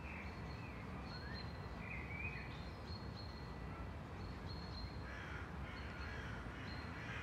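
Quiet outdoor background of birds calling on and off, with short high chirps and arched calls that grow busier after about five seconds, over a low steady rumble.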